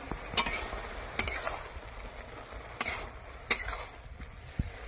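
Metal spatula knocking and scraping against a steel karai while steamed bottle gourd leaves are turned over: four sharp clinks with a brief ring.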